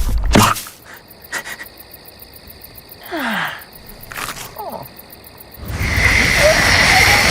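A woman snoring in her sleep. A loud breath at the start gives way to a quieter stretch with two short falling squeaks, then a long loud snore with a high whistling tone in it begins a little after halfway.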